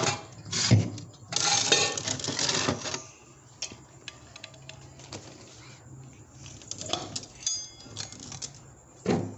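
Plastic food containers being handled and a lid worked open: scattered clicks and knocks, with a stretch of rustling and scraping about one and a half seconds in.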